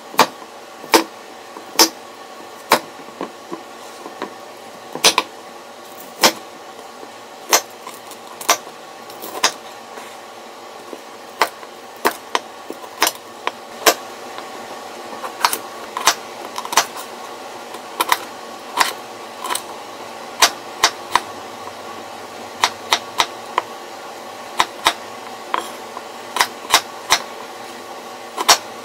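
Kitchen knife cutting broccoli on a wooden cutting board: irregular sharp knocks of the blade striking the board, about one a second and in quicker runs later, over a steady background hum.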